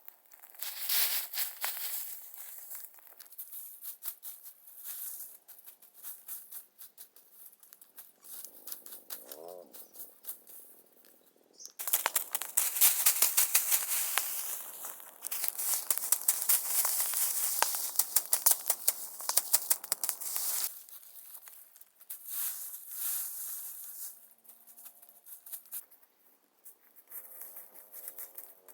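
Rustling and crackling handling noise, dense and loudest for about eight seconds in the middle.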